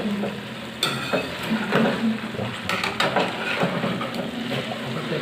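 Chicken pieces frying in a pan with onion paste and masala, sizzling while a spatula stirs and scrapes the pan in strokes about once a second.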